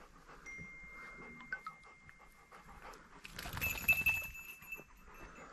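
Pointer dog panting, louder in the second half. A faint thin high tone runs through the first half.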